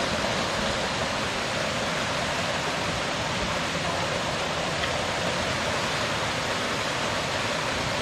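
Steady, even rush of water from a mountain stream.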